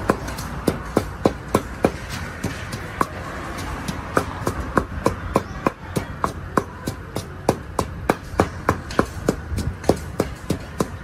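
Wooden pestle pounding green papaya salad in a tall clay mortar: a steady run of sharp knocks, about three a second, thinning out briefly a couple of seconds in.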